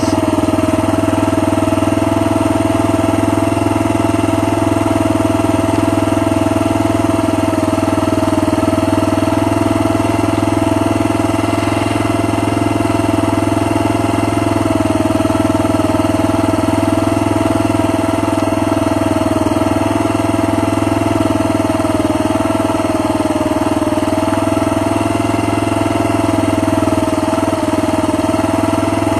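Small engine running loud and steady at a nearly constant speed, its pitch wavering only slightly.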